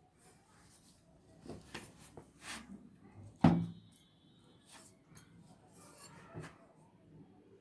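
A scattered series of light knocks and clicks, like objects being handled and set down, with one sharp, louder knock about three and a half seconds in.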